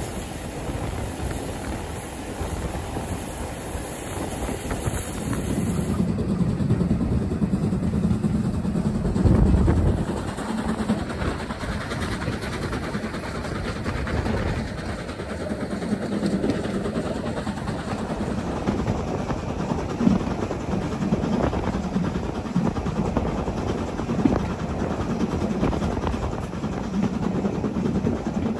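A steam-hauled train on the move, led by a BR Standard Class 4MT locomotive: a steady, dense rumble of the locomotive and carriages on the rails. A couple of sharp clanks come in the second half.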